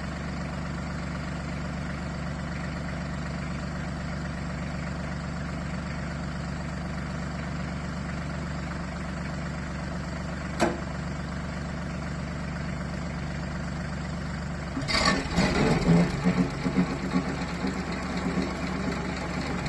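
Branson tractor's diesel engine running steadily, powering a Titan swing stump grinder. About ten seconds in there is a single sharp click, and from about fifteen seconds a louder, irregular crunching as the grinder wheel cuts into the stump.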